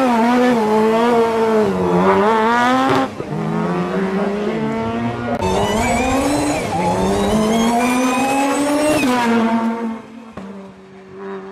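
Hill-climb race car engine at full throttle, pulling away from the start. The pitch climbs hard and drops back at each gear change, then about ten seconds in it falls to a quieter, steadier note.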